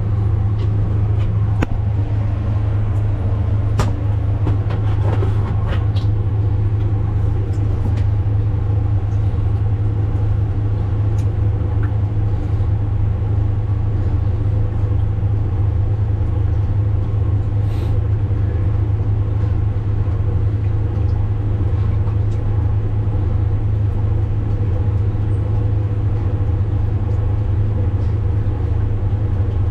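A steady, loud, low machine hum, with a few sharp clicks and knocks in the first several seconds.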